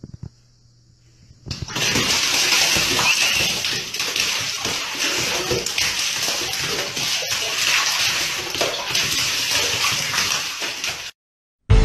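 Water running into a bathtub: a steady splashing hiss that starts abruptly about a second and a half in and cuts off suddenly near the end. A few faint clicks come before it.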